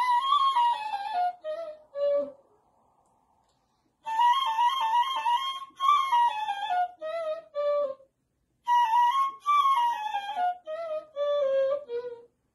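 Persian ney, an end-blown cane flute, played solo: three breathy melodic phrases, each starting on a held high note and winding downward, separated by short silences.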